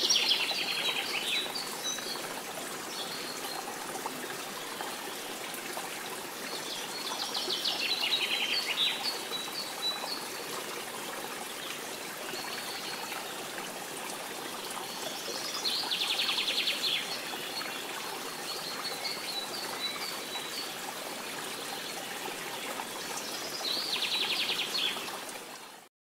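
A bird repeatedly singing a rapid trilled phrase followed by a few short high chirps, four times at about eight-second intervals, over a steady hiss.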